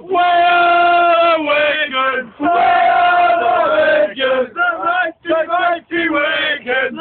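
A group of drunk rugby league supporters singing a chant together, loud and in unison. Long held notes at first, then shorter clipped phrases from about four seconds in.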